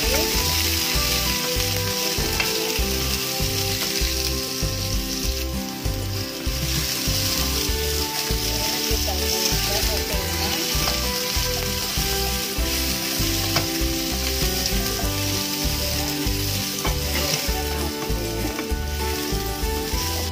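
Sliced bitter gourd sizzling steadily in hot oil as it is stir-fried in a nonstick pan, a spatula turning and tossing the pieces.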